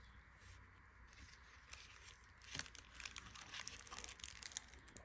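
Faint rustling and crinkling of paper and cardboard packaging being handled, a scatter of soft crackles that gets busier in the second half.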